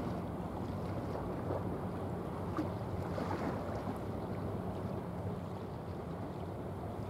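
Steady low drone of a large bulk carrier under way, with a hum and wind and water noise on top.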